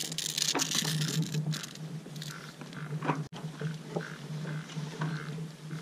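Lightweight nylon sail cloth rustling and crinkling as it is handled and spread out, loudest in the first second or so. A steady low hum runs underneath.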